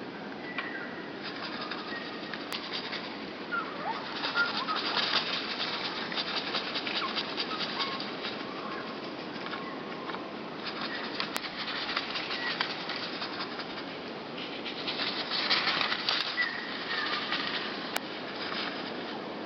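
Small songbirds, great tits and blue tits, flapping their wings in several bursts of rapid fluttering, with a few faint short calls between them.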